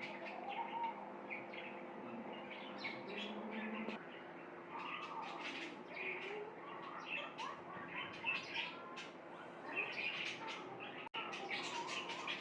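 Small birds chirping, many short calls throughout, over a steady low hum, with a brief break in the sound about eleven seconds in.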